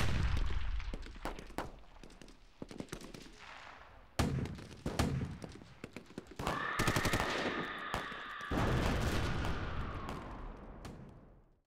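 Gunfire sound effects: scattered and rapid shots, with heavy blasts at the start and again about four seconds in. About six seconds in a steady high two-tone wail joins the shooting. Everything fades and stops just before the end.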